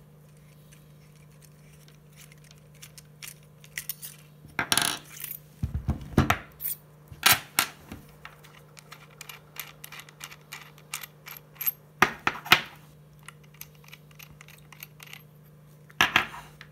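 Parts of a TIG welding torch being taken apart and laid on a wooden desk: a run of small clicks, clinks and knocks as the back cap, copper collet and tungsten electrode are handled and set down, starting about three seconds in. A steady low hum runs underneath.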